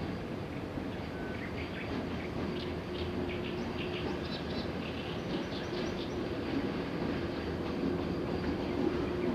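Freight train rumbling steadily across a concrete viaduct, an electric locomotive hauling heavy-duty wagons with an oversized load. A steady hum joins the rumble about three seconds in, and short high chirps come between about two and six seconds in.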